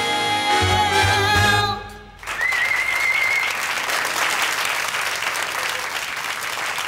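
A singer and band end a song on a long held final note and chord, which stops about two seconds in; then an audience breaks into steady applause.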